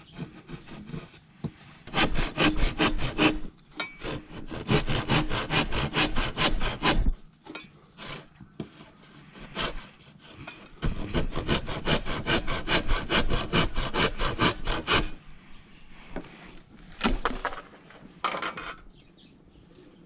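Hand saw cutting through a bamboo pole in quick back-and-forth strokes. Two long runs of sawing are separated by a pause of a few seconds, and a few last strokes come near the end.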